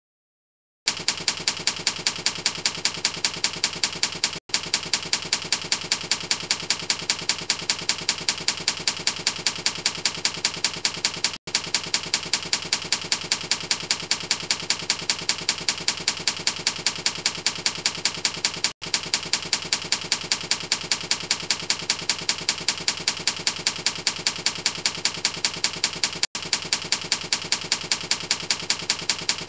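Typewriter typing sound effect: a steady, rapid run of keystrokes starting about a second in. It loops, with a brief break about every seven seconds.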